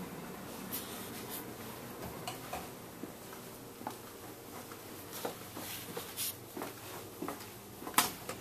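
Quiet indoor room tone with a low steady hum, broken by scattered soft footsteps and small handling clicks as someone walks along; a sharper click comes near the end.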